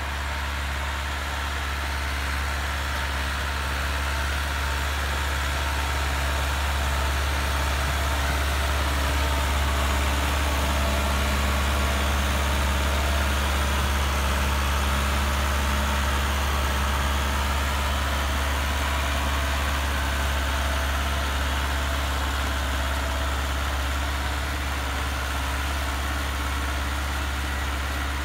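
Massey Ferguson 375S tractor's diesel engine running steadily under load while pulling a disc harrow through the soil, a little louder in the middle as the tractor draws nearer.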